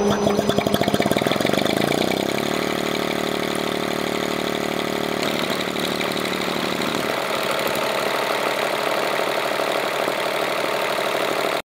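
See-through LiquidPiston rotary engine running on acetylene metered into its intake, a steady running sound that cuts off suddenly at the end.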